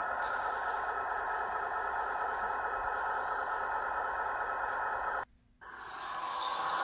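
Walthers Mainline F40PH model locomotive's DCC sound decoder playing a diesel engine sound through the model's small speaker, a steady hum. About five seconds in the sound cuts out for a moment, then comes back and grows louder as the engine notches up.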